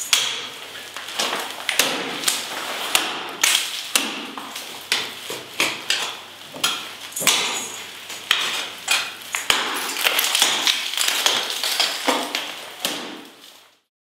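Ice axe picks and crampon front points striking and kicking into a vertical ice wall: a string of sharp, irregular strikes about one or two a second, which stop abruptly near the end.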